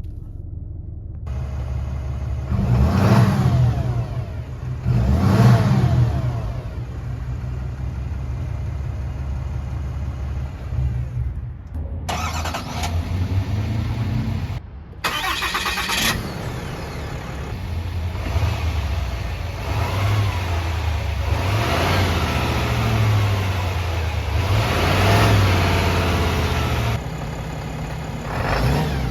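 Heavy-duty pickup truck diesel engine idling and revved repeatedly: two short blips early on, then after a cut a run of longer revs that rise and fall.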